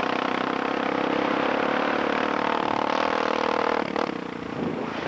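Motorcycle engine running steadily while riding, with its note falling off after a sharp click near the end.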